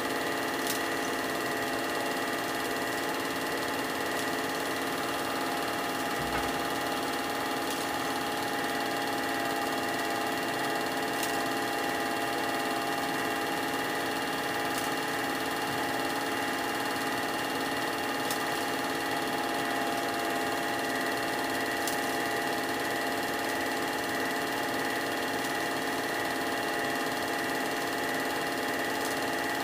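Film projector running: a steady motor-and-fan hum with a thin high whine, and a faint tick about every three and a half seconds.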